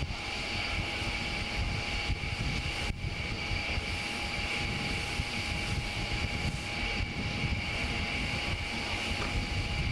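Steady rumble and rushing noise of wind and machinery on the deck of a destroyer under way at sea, with a steady high whine over it.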